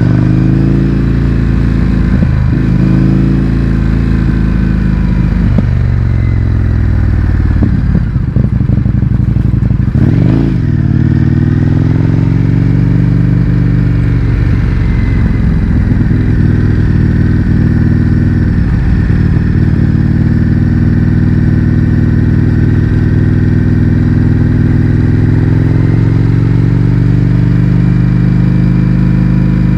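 Indian FTR 1200's V-twin engine running loud through an Akrapovic exhaust with its baffles removed, the motorcycle under way with the revs rising and easing. About ten seconds in the engine note dips briefly, then climbs again and holds steady.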